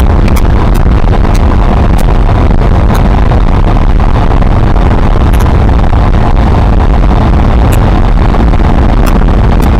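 Suzuki Marauder 125's single-cylinder four-stroke engine running steadily through its original stock exhaust while the bike rides at road speed, loud and even throughout, mixed with wind noise on the microphone.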